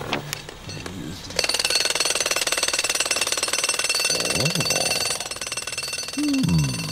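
Pneumatic drill (jackhammer) breaking up road surface: a rapid, continuous hammering that starts about a second and a half in.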